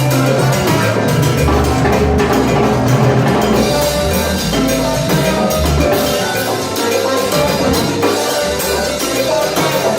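Live salsa band playing an instrumental passage, percussion and bass to the fore.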